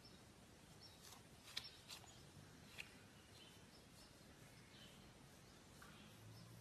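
Near silence: faint background hiss with a few faint, short clicks and chirps.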